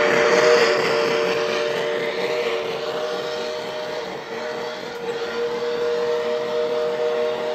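Model train running on the layout: a steady chord of a few tones is held throughout, with brief breaks, over a rushing running noise that fades over the first few seconds.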